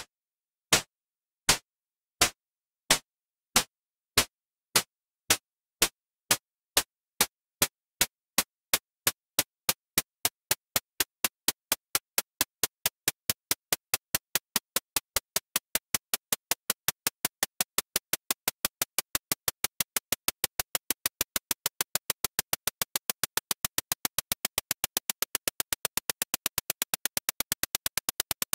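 Countdown-bomb ticking sound effect: sharp, clock-like ticks that speed up steadily, from a little over one a second to several a second near the end, as the fuse burns down.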